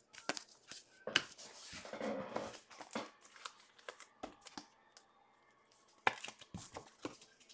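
Trading cards and their packaging handled on a table: scattered light taps and clicks, with a short rustle about two seconds in.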